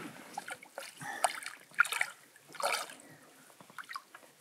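Lake water splashing and dripping in a few short, irregular splashes, most of them in the first three seconds.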